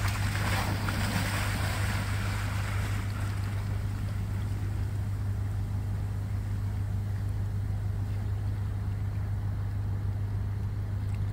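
Water splashing and churning as an autonomous underwater vehicle drops off its launch ramp into the sea, the wash dying away over the first few seconds. A steady low machinery hum runs underneath.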